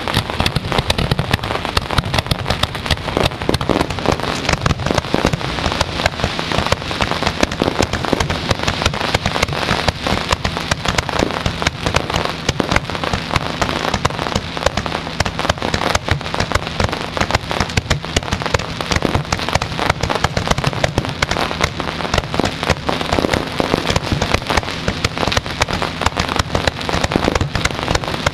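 Fireworks show heard close to the launch barge: a dense, unbroken crackle of many small bursts and bangs, with a steady low hum beneath.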